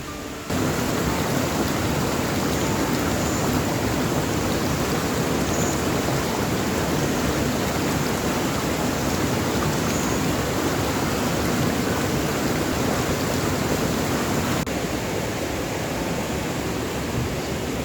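Steady, even hiss of running water, cutting in about half a second in and dropping slightly in level after a cut near the end.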